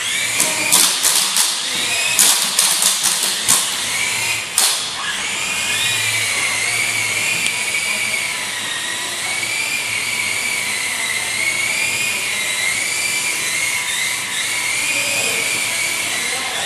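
Small remote-control helicopter's electric motor and rotor whining, the pitch wavering slowly up and down. A run of sharp clicks or taps in the first five seconds.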